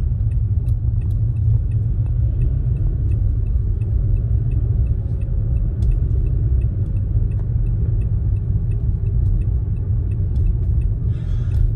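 Road noise inside a moving car's cabin: a steady low rumble of tyres and engine. Faint, evenly spaced ticking runs through it.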